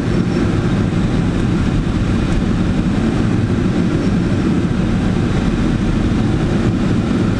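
Steady rush of air over a Blanik L-23 glider's canopy and cockpit on aerotow, with the tow plane's engine mixed in.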